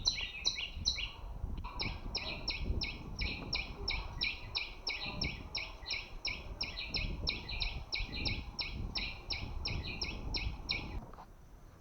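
Bird calling: a fast, even series of identical chirps, about three or four a second, with a short break a little over a second in, stopping abruptly near the end, over a low rumble.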